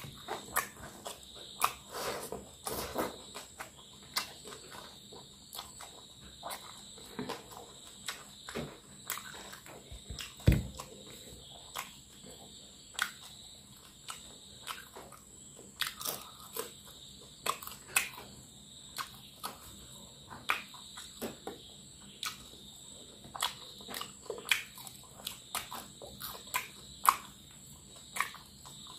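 Close-up eating sounds: chewing and crunching fried fish and rice, with many short wet mouth clicks and crackles. A dull thump comes about ten seconds in. A faint steady high-pitched tone runs underneath.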